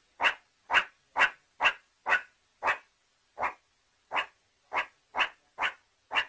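A run of short, sharp animal calls, about two a second, evenly spaced with silence between, slowing briefly around three to four seconds in.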